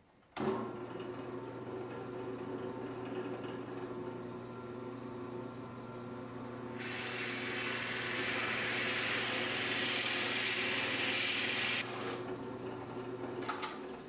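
Drill press motor starting and running with a steady hum. From about seven seconds in, the large bit bores into a block of wood with a loud hissing, shaving noise for about five seconds. The motor is switched off near the end.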